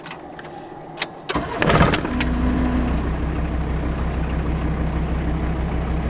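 VW T4 van's engine started: a click, a brief crank by the starter, and it catches about two seconds in, then idles steadily.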